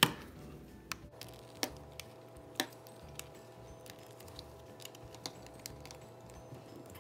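Plastic bread tie prying along the seam of a TV remote's snap-together plastic case: a sharp click right at the start, then scattered small plastic clicks and scrapes as the snap tabs are worked loose.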